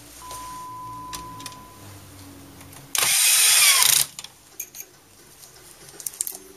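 The exposed carriage and gear mechanism of an HP inkjet printer being worked by hand, with scattered light clicks. About three seconds in, a loud hissing burst lasts about a second.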